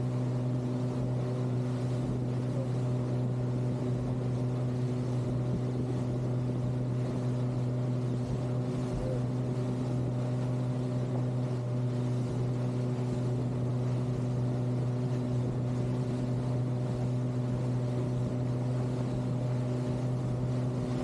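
Fishing boat's engine running at steady revs while underway: a constant, even hum.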